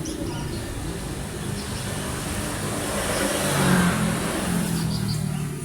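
A motor vehicle's engine running, swelling to its loudest a little before four seconds in and then easing off, as when a vehicle passes.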